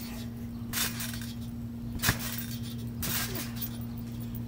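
Trampoline bouncing: the mat and springs clink and creak with each landing, about once a second, with one sharp snap about two seconds in.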